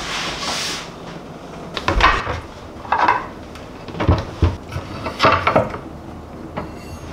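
Over-door dish-towel hanger being handled on a kitchen cabinet door: a brief rustling slide in the first second, then five or so sharp clacks and knocks of the hanger against the door, about a second apart.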